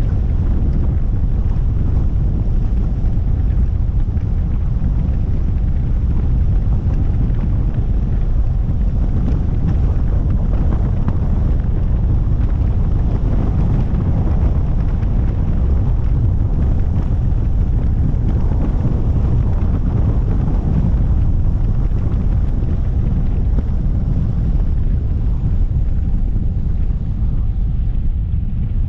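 Steady low rumble of wind buffeting a roof-mounted camera's microphone on a moving vehicle, mixed with road and tyre noise. It swells briefly around the middle as an oncoming van passes.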